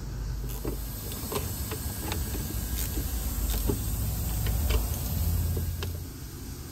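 Metal pump parts being handled: scattered light clicks and knocks over a low, steady rumble that swells in the second half.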